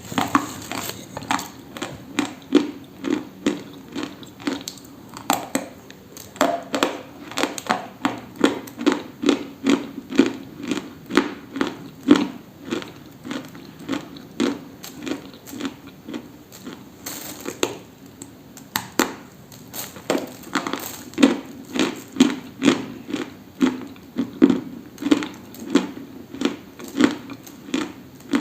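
Close-up, steady chewing of something dry and crunchy, with sharp crunches coming about twice a second.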